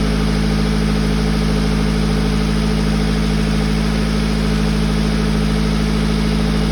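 GAZelle's ZMZ-406 inline-four petrol engine idling steadily after a timing chain and chain damper repair meant to cure its knock.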